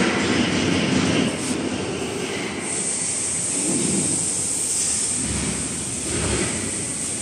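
Steady machine noise that starts suddenly, with a thin high-pitched whine joining about three seconds in.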